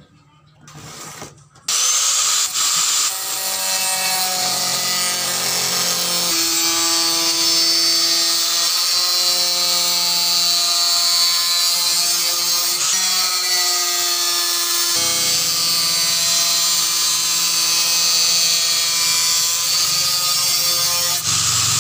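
Angle grinder with a cut-off disc cutting through 1.4 mm galvanized iron sheet: it starts suddenly about two seconds in and runs loud and steady, a high grinding whine whose pitch shifts a few times as the disc bears into the metal.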